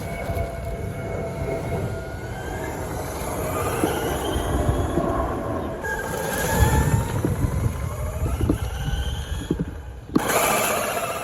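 Brushless electric motor of an RC car whining up and down in pitch as it drives, over a low tyre rumble on the road. Scattered sharp clicks come from its plastic-geared toy-grade differential, a sign the diff is failing under the motor's power.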